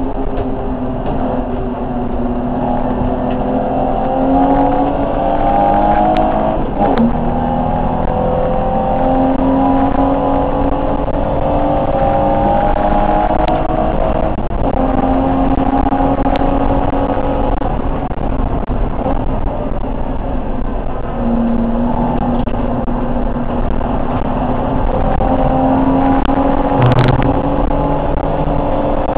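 BMW E30 325 race car's straight-six engine under hard acceleration, heard from inside the cabin. The engine note climbs in pitch and drops at each gear change, several times over, over steady road and wind noise.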